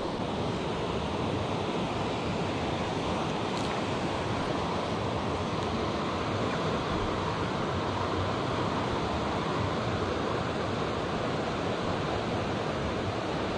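Steady rushing of a clear, stony river flowing over a riffle.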